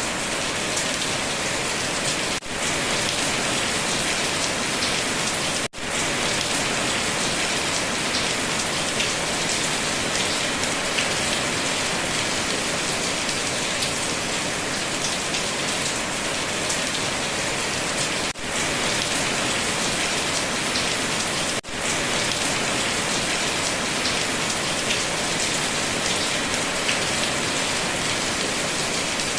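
Steady, heavy rain falling on a surface, a dense even patter of drops. The sound dips out for an instant four times.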